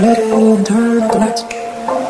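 Background music: a song with a sung vocal holding long, steady notes that slide slightly between pitches.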